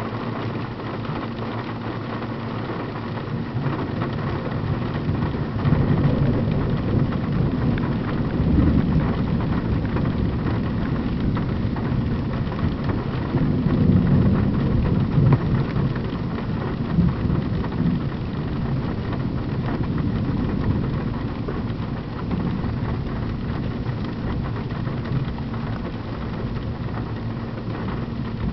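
Heavy rain drumming on a car from inside the cabin, with rolls of thunder swelling several times, loudest about halfway through. A steady low hum runs underneath.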